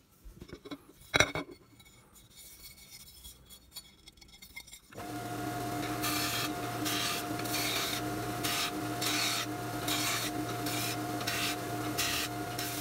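A knock about a second in, then from about five seconds in a small bench belt sander runs with a steady hum while the edge of an aluminium plate is pressed against the belt in repeated rasping strokes, about two a second.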